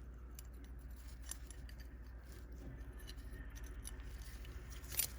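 Faint light metal clicks and small scrapes from handling parts inside a vintage sewing machine's hook mechanism, with one sharper click about five seconds in, over a low steady hum.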